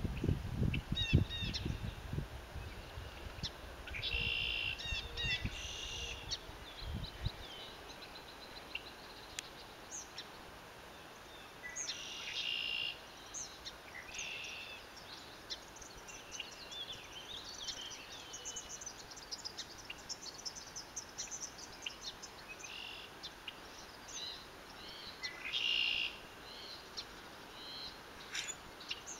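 Several small birds singing and calling, with many short high chirps and trills scattered throughout over a faint background hiss. A low rumble dies away in the first several seconds.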